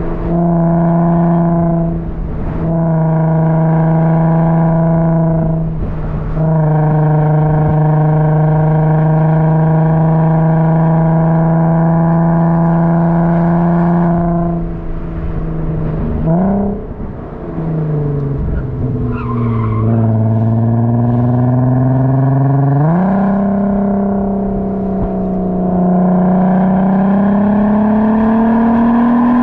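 A car engine running loudly at steady, high revs, with a couple of brief breaks early on. Past the middle the pitch falls, then jumps up about two-thirds in and climbs slowly as the car accelerates.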